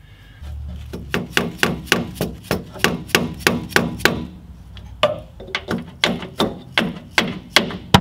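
Light hammer taps on metal in a car's engine bay, about three sharp ringing taps a second, in two runs with a short pause around the middle.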